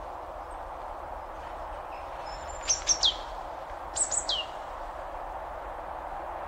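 Two short runs of sharp bird chirps, each of about three notes falling in pitch, a little over a second apart, over a steady outdoor hiss.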